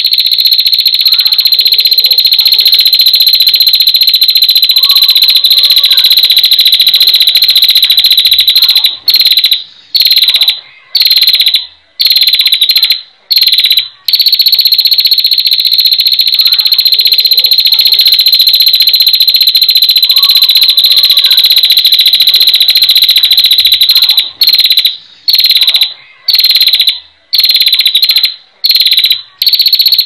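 Female prinia (prenjak) giving its long, rapid high-pitched trill ('ngetir'), held unbroken for many seconds at a time. Twice it breaks into a run of short trills with brief pauses between them.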